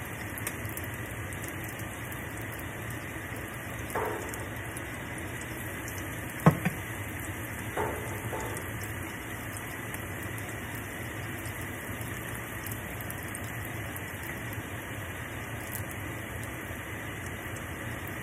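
Hushpuppies deep-frying in hot oil in a cast-iron skillet: a steady sizzle. There is a sharp knock about six and a half seconds in and softer bumps around four and eight seconds.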